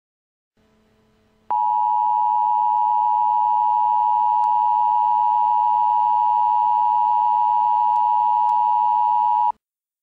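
Emergency Alert System attention signal: a loud, steady electronic tone that starts about a second and a half in, holds for about eight seconds and cuts off abruptly. It marks the start of a tornado warning alert.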